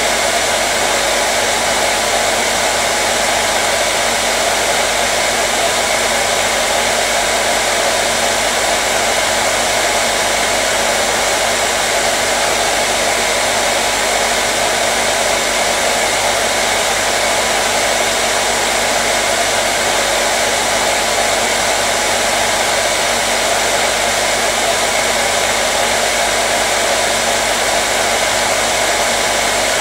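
Hair dryer running continuously: a steady, unchanging rush of blown air with a faint motor hum underneath.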